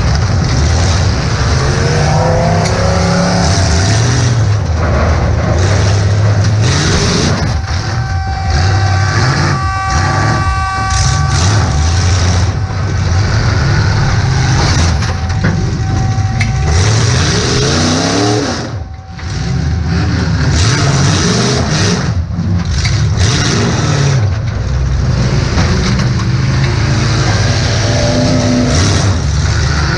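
Demolition derby car's engine heard from inside the car, revving up and down over and over as it accelerates and backs off, with sharp knocks and bangs of impacts throughout. The engine noise dips briefly about two-thirds of the way through.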